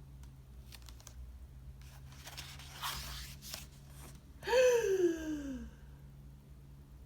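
Paper rustling and crinkling as a book page is handled and turned. About four and a half seconds in comes a drawn-out vocal sound that falls in pitch.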